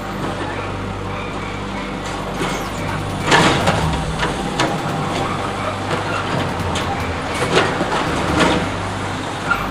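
Mack side-loader garbage truck running at a standstill while its automated arm lifts and dumps a plastic wheelie bin. Loud clattering bangs come about three and a half seconds in as the tipped bin is shaken out into the hopper. Further knocks come later as the arm lowers the bin and sets it down.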